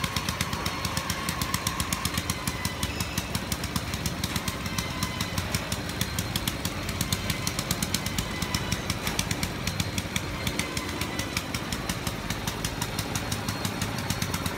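Small engine on a mini rubber-tracked carrier running steadily, with a fast, even beat.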